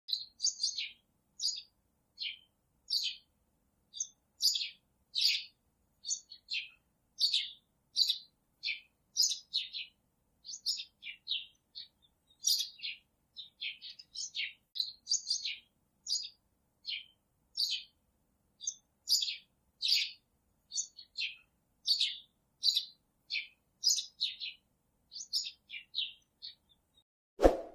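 A baby chick peeping over and over: short, high, downward-falling peeps, about one or two a second. A brief click comes at the very end.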